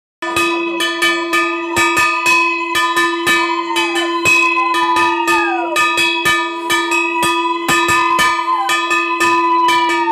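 Brass puja hand bell rung fast and continuously, about three or four strokes a second, with its ringing tone held underneath.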